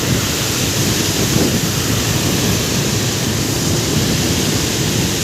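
Fast-flowing floodwater rushing and pouring steadily, with wind rumbling on the microphone.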